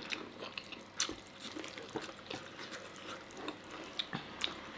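Quiet, wet chewing and mouth clicks of people eating, with a scattering of short sharp smacks about once a second.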